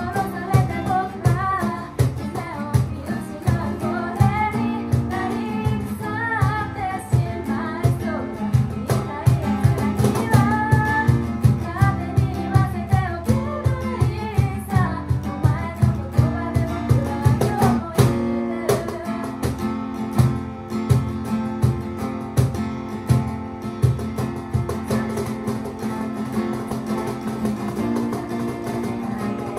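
Live acoustic pop: a steel-string acoustic guitar strummed with a woman singing, over a cajón keeping a steady beat. The singing drops out about 18 seconds in, leaving guitar and cajón playing on.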